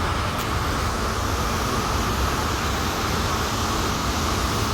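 Steady rushing noise of the Cheeyappara waterfall, even and unbroken, with a low rumble underneath.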